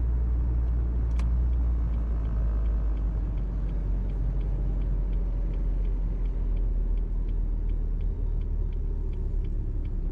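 Steady low rumble of a car on the move, with a light, regular ticking about three times a second.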